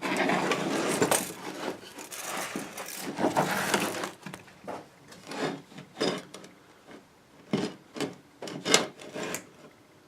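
Objects being shifted and handled on a workbench: a few seconds of continuous rubbing and scraping, then short separate scrapes and knocks, which stop just before the end.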